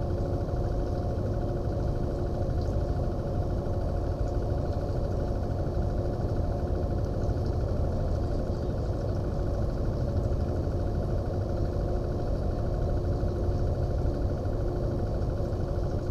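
Boat's outboard motor idling at trolling speed: a steady, unbroken engine drone with a low rumble.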